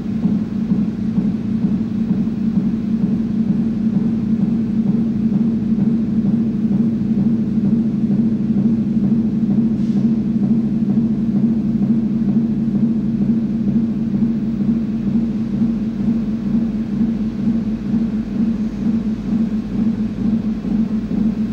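A low, steady musical drone of several held tones sounding together, from the dance score. A faint click about ten seconds in.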